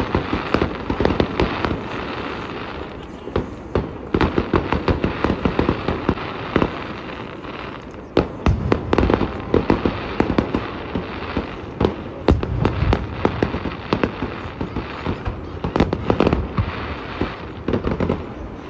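Fireworks display: aerial shells bursting with dense crackling and rapid volleys of pops, in waves broken by short lulls every few seconds.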